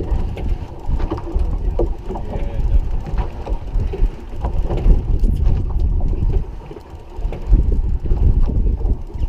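Wind buffeting the microphone on an offshore fishing boat, a heavy, uneven low rumble that rises and falls in gusts, with scattered light knocks and clicks.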